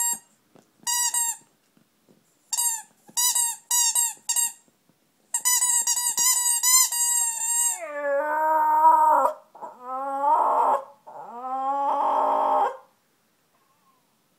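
Dog chewing a rubber squeaky toy: single high squeaks, then a fast run of squeaks. The pitch then glides down into three longer, much lower drawn-out squeals.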